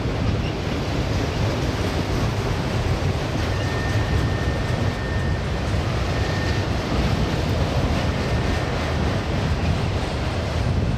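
Union Pacific autorack freight cars rolling steadily past on the rails: a continuous low rumble of steel wheels and car bodies, with a faint thin high tone for a few seconds in the middle.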